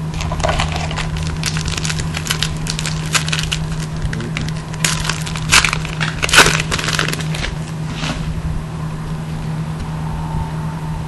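Foil wrapper of a 2011 Panini Prestige football card pack being torn open and crinkled: a run of sharp crackles, loudest around five to six and a half seconds in, dying away by about eight seconds.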